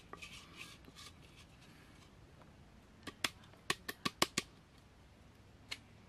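Sharp knocks on an earthenware rice pot as cooked rice is emptied out of it: a soft rustle at first, then a quick run of about seven taps in the middle and one more near the end.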